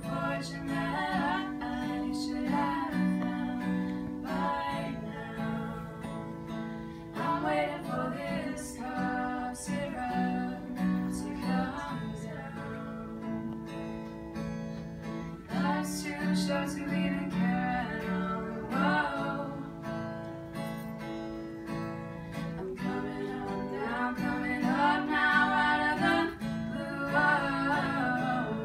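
Acoustic guitar playing chords while a voice sings over it in held, wavering notes.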